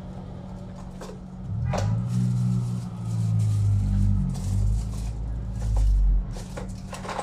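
Background music with a low bass line that moves from note to note every second or so, and a few light clicks.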